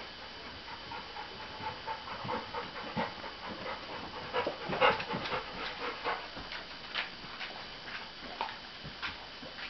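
Great Dane puppy chewing and mouthing at a Bernese Mountain Dog's tail: a run of irregular short mouth and chewing noises, loudest about five seconds in.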